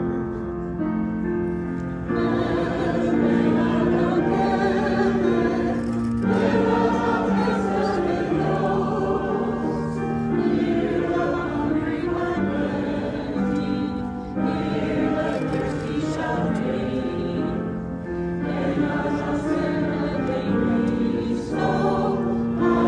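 Church choir singing the entrance hymn of a Mass, in phrases of a few seconds each with held notes.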